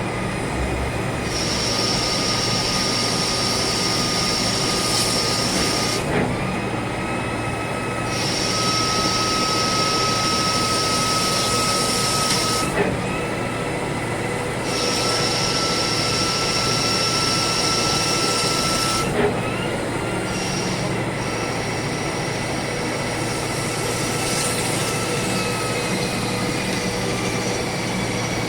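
CNC lathe running through its machining cycle: a high steady whine sounds for several seconds at a time over the constant noise of the machine, breaks off with a click, then starts again, three times over.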